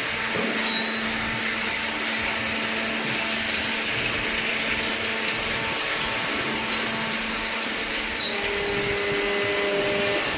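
Horizontal cardboard baler's hydraulic power unit running steadily, an even machine noise with a faint hum, with a second hum joining about eight seconds in.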